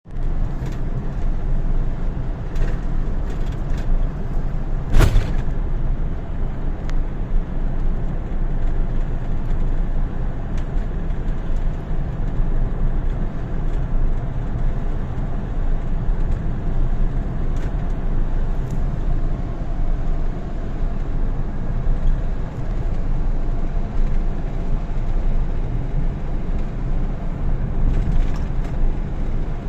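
Steady road noise of a moving vehicle, a low rumble of engine and tyres heard from inside, with one sharp knock about five seconds in.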